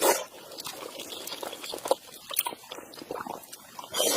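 Close-miked eating sounds: wet chewing and mouth smacking on fatty duck, a run of small, irregular sticky clicks.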